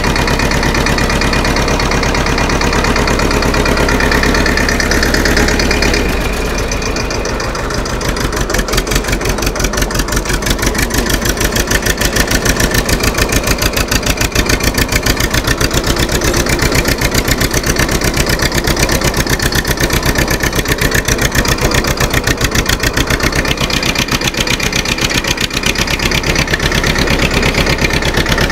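TAFE 25 DI tractor's diesel engine running steadily. Six to eight seconds in its sound shifts, and it carries on with a more distinct, even beat of firing pulses.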